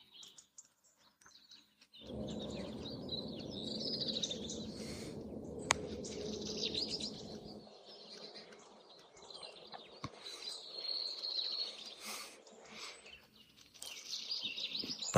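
Wild birds chirping and singing in a morning chorus, short repeated phrases from several birds. A steady low rumble starts about two seconds in and cuts off abruptly around the middle, under the birdsong.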